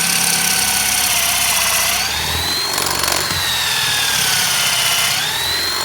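Cordless battery drill with a flat (spade) bit boring a hole into a dry pine log. The motor whine drops in pitch as the bit bites into the wood and rises again, twice.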